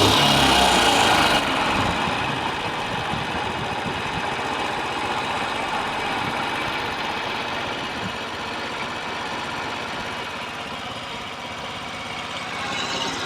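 Honda Press Cub (AA01) 50cc single-cylinder four-stroke engine running with a rapid knocking clatter, the abnormal noise (異音) it is being checked for. The revs drop back toward idle about a second and a half in and pick up slightly near the end.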